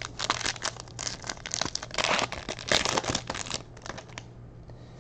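Foil wrapper of a Panini Rookies & Stars football card pack crinkling as it is torn open and peeled off the cards. The crackling stops about three and a half seconds in.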